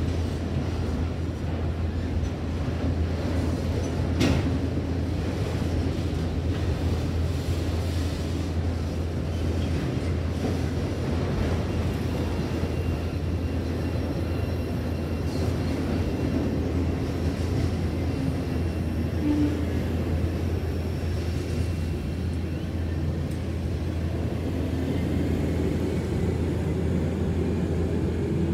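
Freight train of autorack cars rolling steadily past over the rails at a road crossing, with one sharp clank about four seconds in. The last car clears the crossing near the end.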